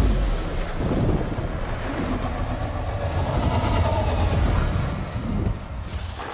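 Cinematic sound effects: a heavy, deep rumble and crashing noise from a large magical creature amid bursts of magic, with a loud hit at the start. It eases off near the end.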